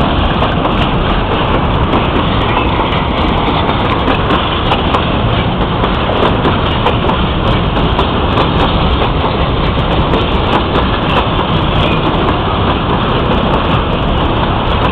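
Freight train's wagons rolling past at close range: a loud, steady rumble of steel wheels on the rails with irregular clattering clicks.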